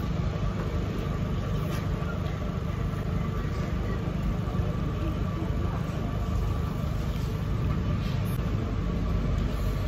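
Steady low rumble of road traffic and running vehicle engines, with a faint steady hum and a few light clicks of a metal fork on a plate.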